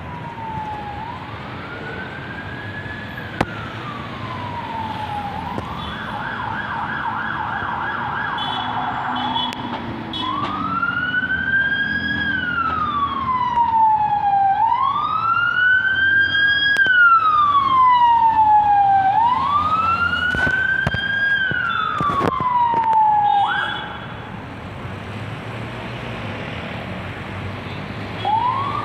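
Police vehicle's electronic siren sounding a slow rising-and-falling wail, switching to a fast yelp for a few seconds early on, then back to the wail and getting louder. It cuts off abruptly a few seconds before the end, and a new wail starts just at the end.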